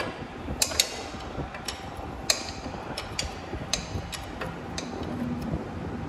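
Sharp, irregular metal clicks and clinks of a socket wrench on a long extension, tightening the last bolt on an engine's cylinder-head cover. There are about a dozen, the loudest a little past two seconds in, over a steady low background hum.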